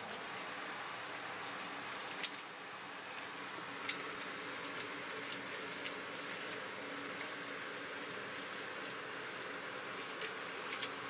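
Steady kitchen background noise: an even hiss with a faint low hum, broken by a few light, sharp clicks.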